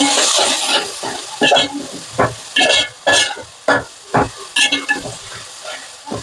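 Curry base sautéing in hot oil in a metal pan, with a loud sizzle at first, then a run of short scraping strokes as a metal ladle stirs against the pan.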